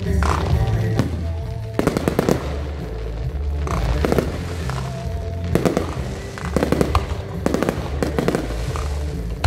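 Aerial fireworks going off in clusters of sharp bangs and crackles, a new cluster every second or so, over music with a steady bass line.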